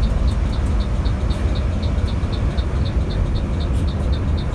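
Mercedes-Benz OH 1526 bus's diesel engine and tyre noise heard from inside the moving coach: a steady low rumble, with a faint regular ticking about four times a second.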